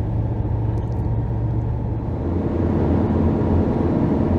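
Campervan engine and road noise heard from inside the cab while driving: a steady low drone that grows a little louder about two seconds in.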